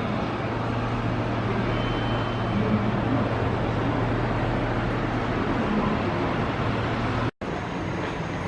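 Road vehicle engine running steadily: a low, even hum over traffic noise.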